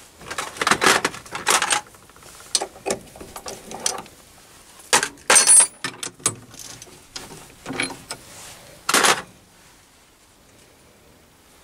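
Metal clinks, knocks and scrapes of tools and a brass workpiece being handled on a stopped mini lathe, as the bar is taken out of the three-jaw chuck. The sounds come in irregular clusters, the loudest near the start, about halfway and shortly before the end, then die away to room noise.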